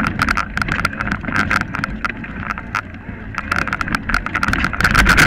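Mountain bike ridden over a rough forest singletrack: the bike and its mounted camera rattle with rapid, irregular knocks and clicks over a steady buzzing hum and low rumble.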